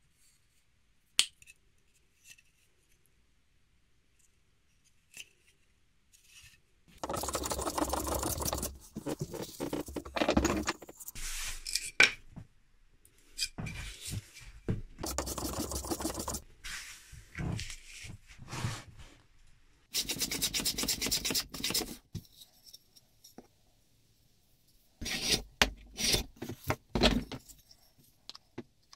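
A hand tool scraping on wood in several bouts of quick rubbing strokes, after a quiet start with a single click about a second in.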